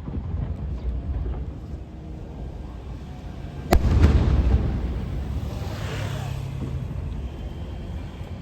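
Aerial fireworks shells bursting over a steady low rumble. About four seconds in, one sharp loud bang booms and echoes, followed by a fading crackling hiss.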